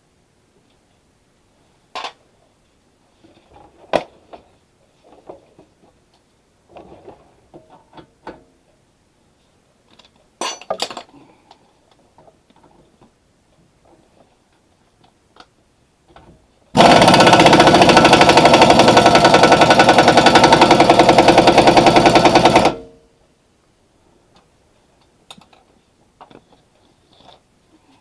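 Scattered clicks and knocks of hand tools on metal. Then, about 17 s in, a loud rapid hammering for about six seconds that stops abruptly, like a pneumatic impact wrench driving a wheel-hub fastener.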